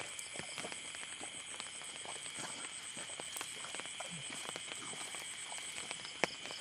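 Night insect chorus: several steady high trills, one of them pulsing rapidly, with scattered light ticks and one sharper click near the end.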